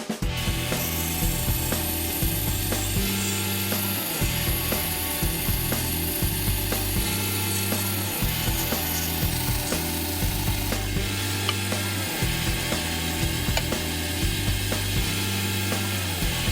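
Background music with a stepping bass line, mixed with an irregular clicking, rasping sound of hand tools working metal.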